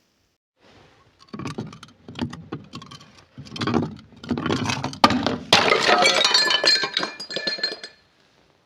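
Glass being crushed: a run of crunches, then two sharp cracks about halfway through, followed by a dense crunching and tinkling of breaking glass with a ringing tone that stops suddenly near the end.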